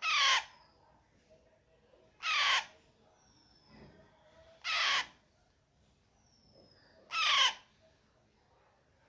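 Alexandrine parakeet chick calling: four loud calls at even intervals of about two and a half seconds, each about half a second long and falling in pitch.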